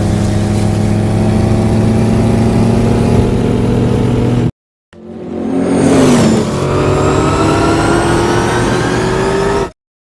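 Batmobile engine sound effects: a loud, steady engine rumble cuts off about halfway through. After a brief silence a second clip swells in with a quick rush, then the engine's pitch climbs slowly as it accelerates, until it cuts off just before the end.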